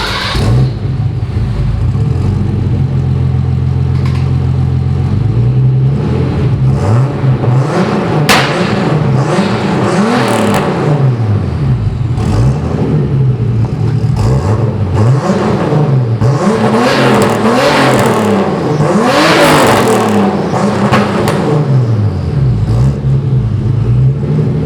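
Turbocharged BMW 635CSi's M30 straight-six engine running at a steady note, then, from about five seconds in, repeatedly rising in pitch and dropping back, as in accelerating through gear shifts.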